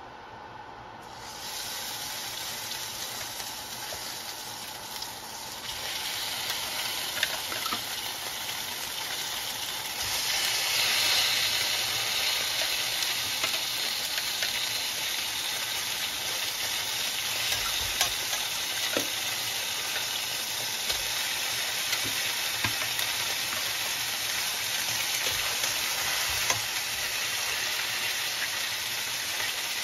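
Raw chicken wings sizzling as they are laid into a hot stainless steel frying pan. The sizzle starts about a second in and gets louder in steps as more pieces go in, with a few light taps against the pan.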